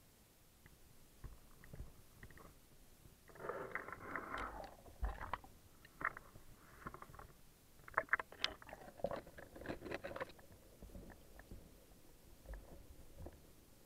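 Handling noise from a camera being put into pond water: rustling, small knocks and sloshing in two bursts, one about three seconds in and a longer one about eight seconds in, with scattered faint ticks between.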